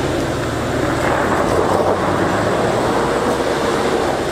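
Off-road SUV engines working under load with a dense, clattering rumble as one vehicle tows a stuck one up a rocky climb on a stretchy kinetic recovery strap.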